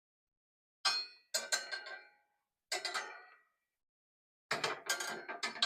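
The hip hoop of a Ringmaster animatronic prop knocking against its torso frame as it is tilted and worked over the frame's fork: a few separate ringing clanks, then a quick cluster of them near the end.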